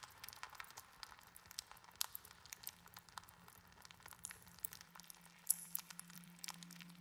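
Faint scattered crackles and clicks over a soft rustle, the sounds of an electroacoustic performance piece; a low steady hum comes in about halfway.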